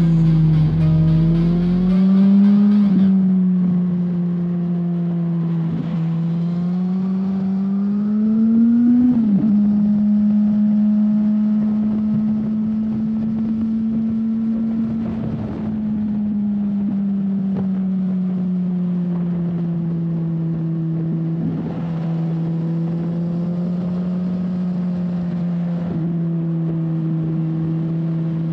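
2007 Suzuki GSX-R 1000's inline-four engine, heard onboard at steady mid revs. The pitch climbs twice and drops sharply at each upshift, then the engine holds a steady note, easing off slightly partway through.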